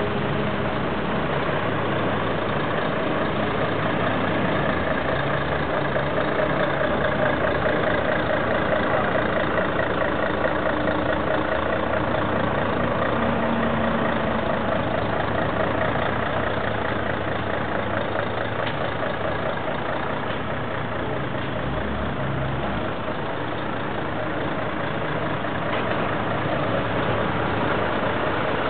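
Heavy vehicle engine running steadily under a constant dense mechanical noise, with no clear changes.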